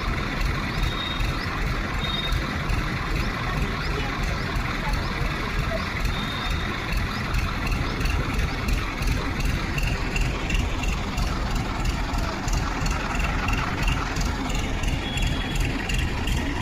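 A vehicle engine running steadily, with a constant low rumble.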